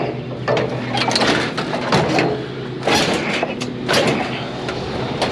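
Metal clanks and scrapes of a weight bench being lifted and shoved into place on a loaded scrap trailer, several knocks about a second apart, over a steady low hum.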